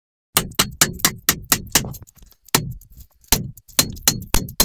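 A quick, uneven series of sharp knocks or strikes, about four a second, in short runs with brief pauses between them.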